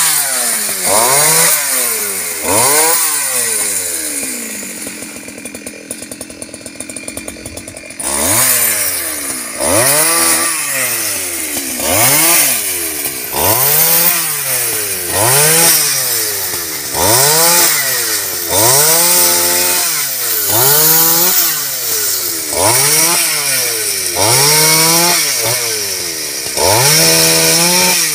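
Chainsaw cutting mù u (tamanu) wood, its engine revving up and falling back over and over, about once every second and a quarter. For a few seconds it settles to a quieter, steadier run, then the rhythmic revving picks up again.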